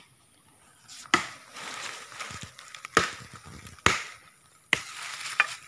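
Four chops of a metal blade into soil and roots, roughly a second apart, each followed by a short rustle of loose earth, as a young tree is dug out by hand.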